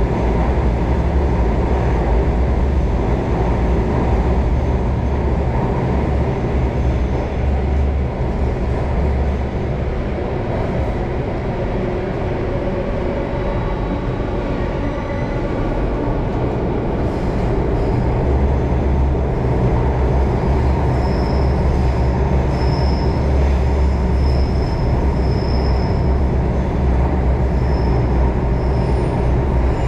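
Singapore MRT Circle Line train running through a tunnel, heard from inside the carriage: a steady, loud low rumble. A few brief high-pitched squeals come about two-thirds of the way in.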